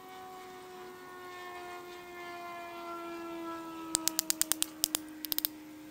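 Wooden baton striking the spine of a knife blade to split a section of branch (batoning): a quick run of about a dozen sharp knocks in three bursts near the end. Under it, a steady hum that slowly falls in pitch.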